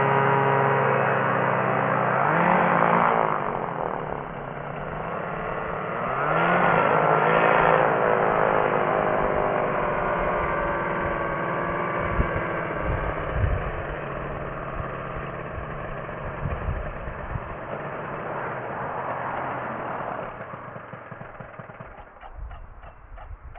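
Rotec Rally 2B ultralight's engine running during slow taxiing, revving up briefly twice early on and again more gently later. Near the end it throttles back to a slow, pulsing idle.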